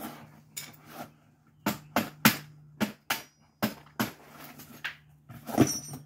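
Hammer tapping a part back into place in a Tesla Model S door handle assembly: about nine sharp knocks at uneven spacing, loudest a little after two seconds in and again near the end.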